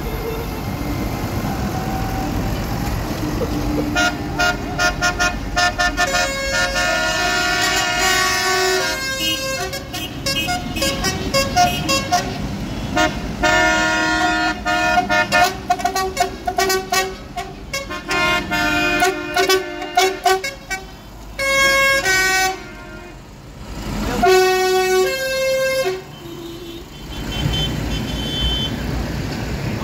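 Tractor engines running as the tractors pass, while horns on them toot over and over in several changing pitches from about four seconds in until near the end.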